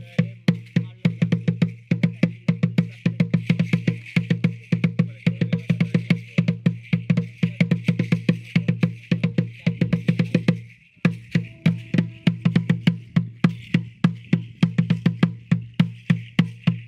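Music of fast, steady percussion: a pitched drum and hollow wooden knocks, several strikes a second, over a faint shaking hiss. The beat drops out briefly about eleven seconds in, then picks up again.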